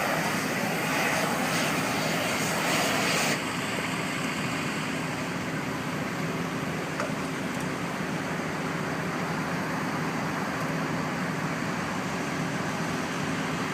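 Propane-fired heater used to melt thermoplastic road-marking strips, running steadily with a low engine hum underneath. A louder hiss cuts off suddenly about three seconds in.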